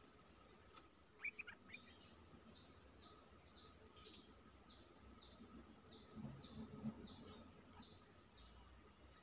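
Faint songbird song: a few sharp chirps, then a long rapid run of short notes, each falling in pitch, about three a second.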